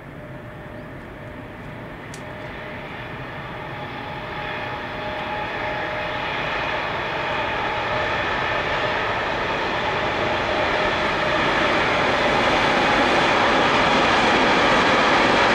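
Container freight train hauled by an ERS Railways Class 189 electric locomotive approaching. Its running noise on the rails, with a steady whine, grows steadily louder as it nears.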